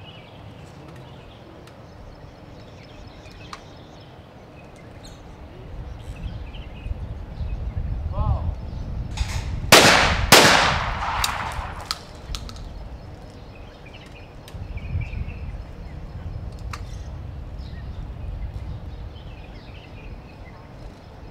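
Two shotgun shots about half a second apart: a skeet double fired at a pair of clay targets. The second shot leaves a long echoing tail.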